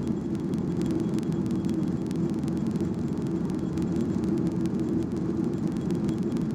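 Steady rumble of a Skymark Boeing 737-800 airliner heard inside the passenger cabin, engine and airflow noise with light rattling ticks.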